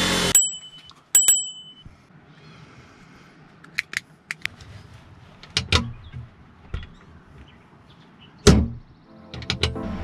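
Clicks and knocks from handling a plywood cabinet door and its brass knob. There are two short metallic pings about a second apart near the start, then scattered light clicks and knocks, the loudest a knock near the end.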